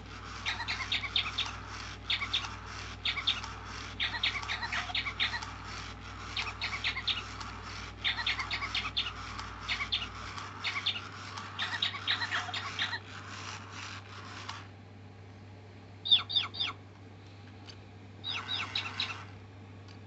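Sega Toys Chirpy-Chi robot bird playing one of its electronic songs: fast, high tweeting tones in repeated phrases for about fifteen seconds. A short burst of three loud chirps follows, then another brief chirping phrase near the end.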